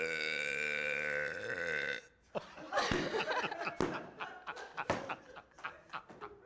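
A woman's long, loud burp held at a steady pitch, which stops about two seconds in. Laughter follows.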